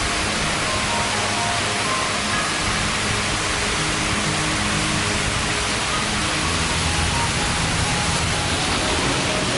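Background music of short held notes over a loud, steady rushing noise.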